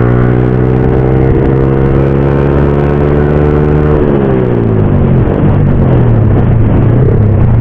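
Motorcycle engine running at a steady speed, then its revs falling away about four seconds in, leaving mostly a rushing noise.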